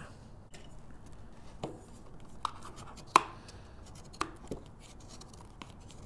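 A few separate light taps and knocks of hands pressing a paper box down onto a cardstock organizer base, with one louder knock about three seconds in.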